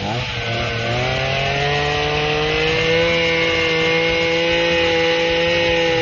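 Small petrol engine of a garden multitool driving a pole hedge trimmer attachment, running at high speed. Its pitch climbs over the first few seconds as it speeds up, then holds steady.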